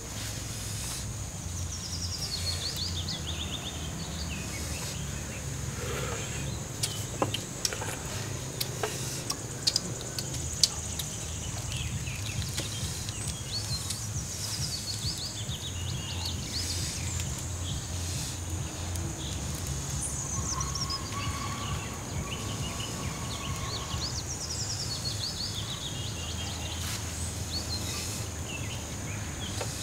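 Outdoor ambience with birds calling: runs of quick notes falling in pitch, repeated every few seconds over a steady high hum and a low rumble. A few sharp clicks come about a third of the way in.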